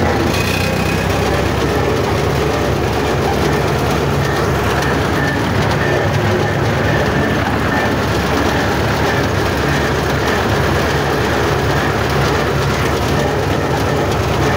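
Old tractor's engine running steadily while the tractor is driven along in fourth gear, heard from the driver's seat.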